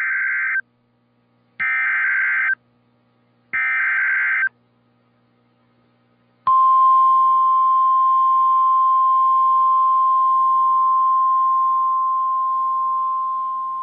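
NOAA Weather Radio Emergency Alert System header: three short bursts of warbling data tones about a second apart, followed about six and a half seconds in by a steady single-pitch warning alarm tone that fades slightly near the end. The sequence announces a new weather warning about to be read.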